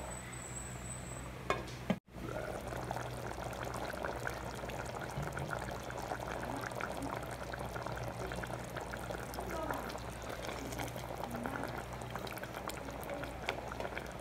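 A pot of tomato-based pork stew (menudo) bubbling as it cooks, a steady dense crackle of small pops. A wooden spatula dips in to stir near the end.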